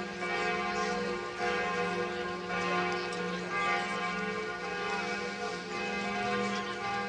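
Notre-Dame de Paris's cathedral bells ringing in a full peal. Several bells sound together, a deep bell under higher ones, their tones overlapping, with fresh strokes about once a second.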